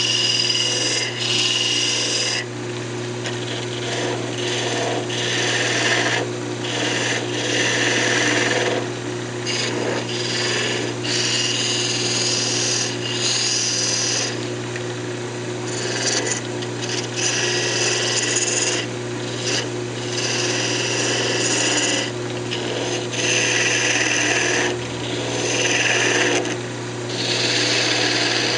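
Wood lathe motor humming steadily while a spindle gouge cuts the spinning cocobolo blank in repeated passes. Each cut is a scraping rush of a second or two, with short breaks between.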